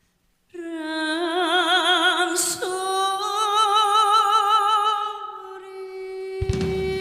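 A woman sings long held notes of a Korean trot song, unaccompanied, with wide vibrato, and steps up to a higher note a little over two seconds in. A band with drums comes in near the end.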